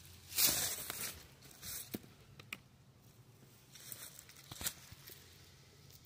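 Homemade liquid bee repellent (peppermint soap, cayenne and cinnamon) poured into the ivy over a bee nest: a few short bursts of splashing and rustling, with a few sharp clicks.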